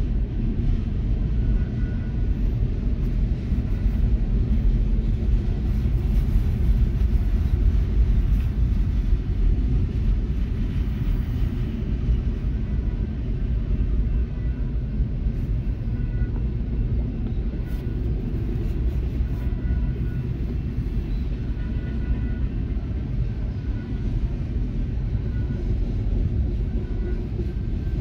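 Double-stack intermodal train's container well cars rolling past at steady speed: a continuous low rumble of steel wheels on the rails.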